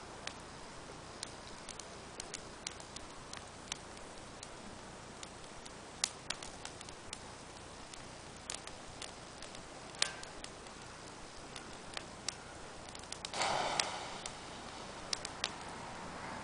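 Fire burning in a small steel mesh fire pit, crackling with irregular sharp pops over a steady low hiss. A short, louder rush of noise comes about three-quarters of the way through.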